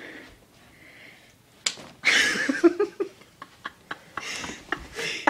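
A sharp slap about a second and a half in, followed by a startled cry and a string of short knocks and scuffling as the sleeper wakes.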